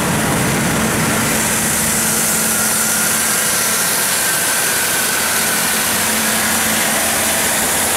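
John Deere six-cylinder diesel engine of a 350 kW generator set running steadily, heard through its open enclosure doors as a constant, unchanging drone.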